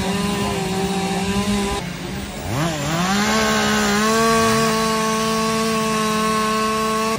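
Chainsaw engines running at high revs. After a cut about two seconds in, a saw revs up with a rising whine and settles into a steady high pitch, and a second, fainter rev-up follows a couple of seconds later.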